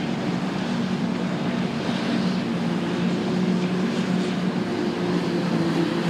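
Several Claas self-propelled forage harvesters and tractors running together at work, chopping grass into silage trailers. The engines hold a steady drone, with a second, higher engine tone joining about halfway through.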